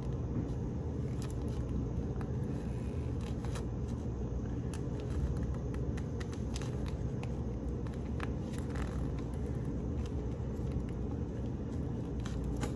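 Steady low hum, with a few faint clicks of plastic as an IV piggyback bag, its medication vial and a spike set are handled and twisted together.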